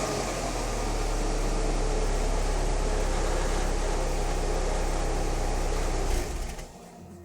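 Alfa Romeo 145 engine running steadily with an even, low drone, dropping away about six and a half seconds in.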